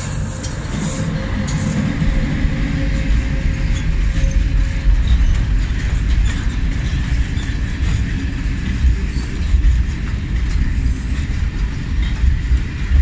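Freight train of covered wagons rolling past behind ŽFBH class 441 electric locomotives: a steady deep rumble of steel wheels on rail, with uneven knocks as the wagons cross rail joints. A faint steady hum fades out after about five seconds as the locomotive moves away.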